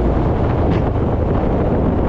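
Royal Enfield Himalayan motorcycle being ridden off-road, its single-cylinder engine running under heavy wind buffeting on the microphone. A short hiss comes less than halfway in.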